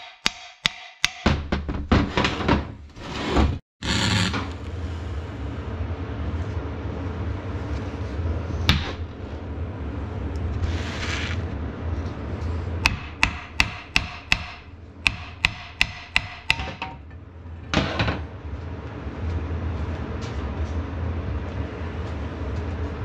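Hammer strikes on a cast-iron tractor manifold clamped in a vise: a few sharp taps near the start and a quick run of them, about three a second, in the middle, over a steady low background.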